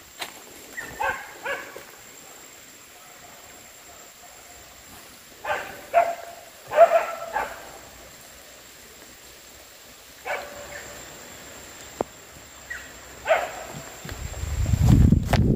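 Animal barking calls coming in short clusters of two or three with quiet gaps between. There is a single sharp click late on, and a low rumble just before the end.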